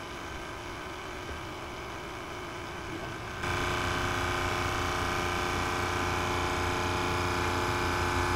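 Electric hydraulic power pack driving a portable track press as it pushes a pin into a dozer's track chain. A steady hum that steps up suddenly to a louder, steady pitched drone about three and a half seconds in.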